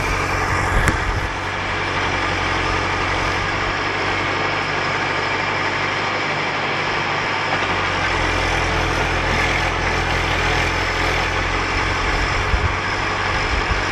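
Volvo BM EL70 backhoe loader's diesel engine running steadily as its backhoe digs, with a sharp knock about a second in. The low engine rumble weakens for a few seconds around the middle, then comes back.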